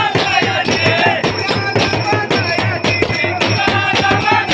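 A group of men singing a festival chant together, clapping along, over a large double-headed drum beaten with a stick in a steady beat.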